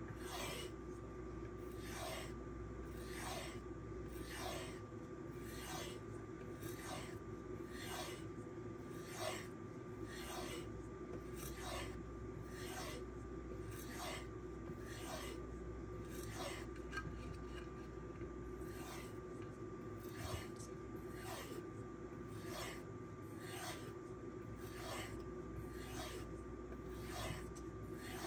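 Magnacut knife blade being stropped on a leather strop loaded with 1-micron diamond compound. The strokes are short, even swishes at about one and a half a second.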